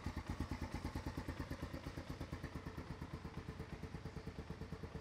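Honda Recon 250 ATV's air-cooled single-cylinder four-stroke engine idling, a steady fast putter of even exhaust pulses that slowly grows quieter.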